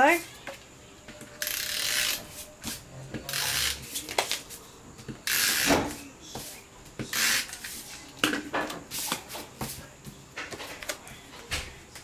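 Stampin' Up Snail adhesive tape runner drawn across cardstock in several short strokes, each lasting a second or less, laying double-sided adhesive. Softer paper rustles and taps follow as the cardstock panel is laid down and pressed on.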